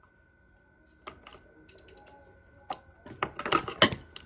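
Small glitter containers being handled: a few scattered clicks, then a quicker run of clicks and rattles near the end.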